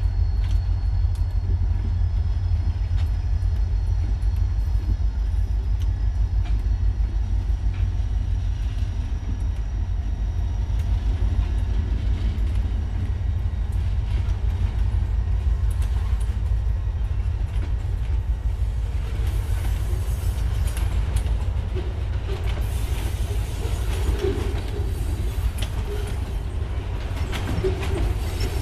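Freight train passing: EMD GP40 diesel locomotives go by with their engines running, then boxcars roll past with wheels clicking and clattering over the rail joints, the clatter growing busier in the second half.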